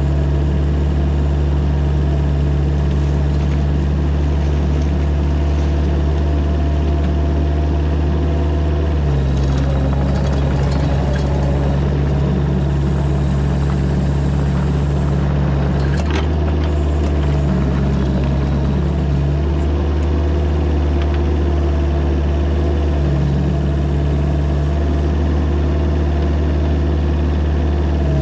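Mini excavator engine running steadily under work, its note shifting between steady pitches every few seconds as the load changes, with a single knock about sixteen seconds in.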